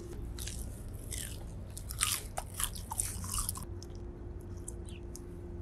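Two people biting into Korean corn dogs and chewing the crunchy fried batter in a run of crisp crunches. The loudest crunches come about two and three seconds in, and the crunching stops a little past halfway.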